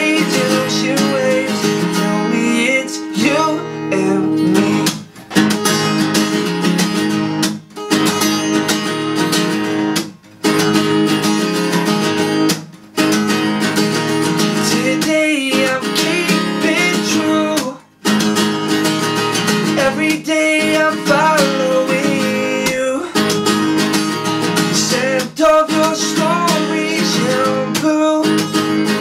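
Acoustic guitar strummed with a capo on, accompanying a man singing. The strumming stops for a moment several times, at roughly two- to three-second intervals.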